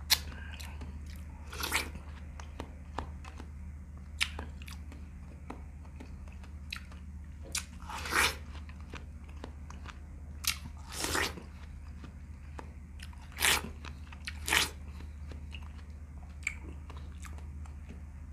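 Biting into and chewing watermelon flesh close to the rind: short wet crunches at irregular intervals, a few louder ones, over a steady low hum.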